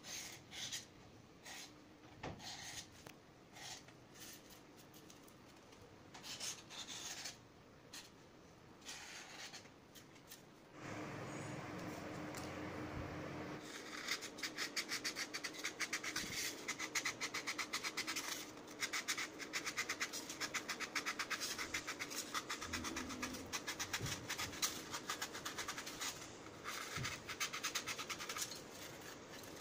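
Short scratching strokes of a marker pen on polystyrene foam. From about halfway on, a thin pointed metal tool saws rapidly through the foam along the drawn circles, giving a fast, continuous scratchy rasp. A few seconds of steady background hum come just before the cutting starts.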